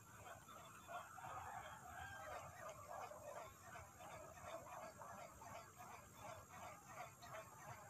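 Faint chorus of many animal calls in the distance, short calls overlapping without a break.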